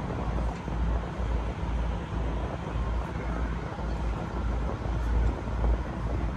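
Wind buffeting the microphone in uneven gusts of low rumble over a steady rush of noise, as recorded from a moving river tour boat.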